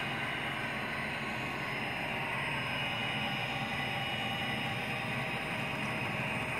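Model train locomotive running steadily along the track, its MTH Proto-Sound 2 sound system playing a diesel engine rumble.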